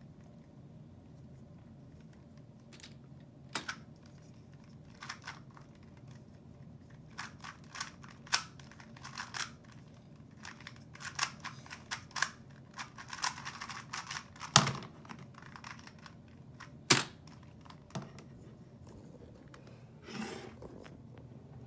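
Plastic clicks and clacks of a GAN 249 v2 2x2 speedcube being turned in quick irregular bursts during a timed solve, with a few sharper knocks, the loudest about two-thirds of the way in. A brief rustle of handling comes near the end.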